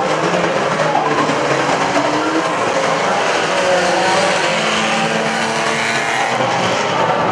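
Several unlimited banger race cars' engines revving together, a mix of engine notes rising and falling at once.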